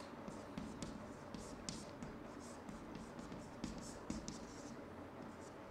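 Chalk writing on a chalkboard: faint, short scratching strokes with small taps as the characters are formed.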